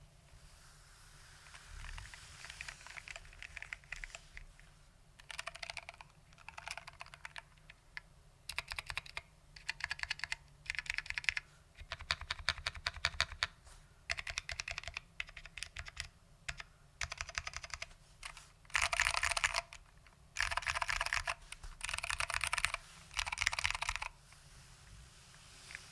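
Typing on a Lunar AEK65 keyboard with foam-damped SKCM Orange Alps switches: runs of rapid key clicks in bursts with short pauses between them, the loudest runs near the end.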